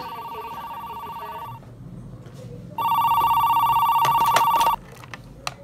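Corded landline desk telephone ringing with a trilling electronic tone: two rings of about two seconds each, the second louder. A few sharp clicks come near the end of the second ring as the handset is picked up.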